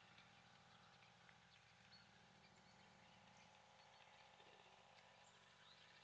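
Near silence: faint outdoor ambience with a few faint, short, high ticks or chirps scattered through it.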